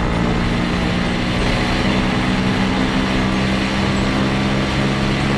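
Steady machine drone, several fixed low tones held evenly under a loud hiss.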